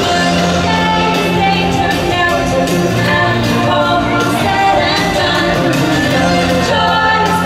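Theme-park show music with singing, playing steadily.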